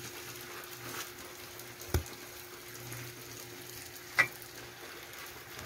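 Two sharp clinks of a knife against a plate as a slice of flan is set down, the second with a short ring. Under them runs the steady soft hiss of the last light rain.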